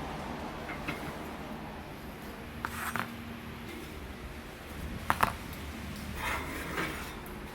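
Light handling noises: a few short clicks and rattles of small hard objects being picked up and set down, about three seconds in, around five seconds in, and again near the end, over a steady low background hum.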